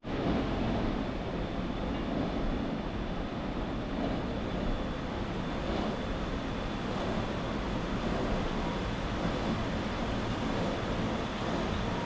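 Steady rush of flowing water, with a low wind rumble on the microphone.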